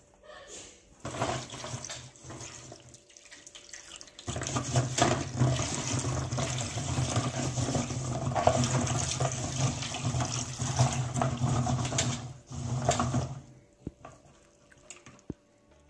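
Water pouring and splashing into a plastic bowl of green olives while a hand swishes and rubs the olives, rinsing the lime off them after their lime soak. The water runs briefly at first, then steadily from about four seconds in until near the end.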